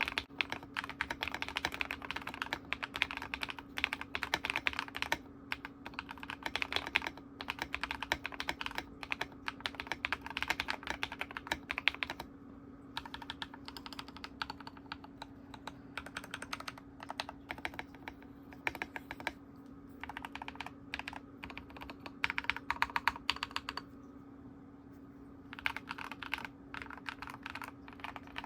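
Mechanical keyboard with lubed Akko Wine Red linear switches being typed on in fast runs, broken by a few short pauses. The case is dampened with foam between plate and PCB, painter's tape on the PCB and lubed, band-aid-modded stabilizers.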